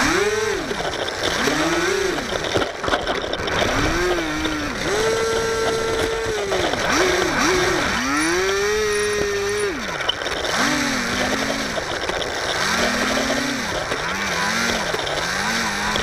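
HobbyZone Firebird Delta Ray's electric motor and propeller, heard up close, throttled up and down in a string of short rising-and-falling whines as the model plane taxis on concrete. Two longer steady high holds come about five and eight seconds in.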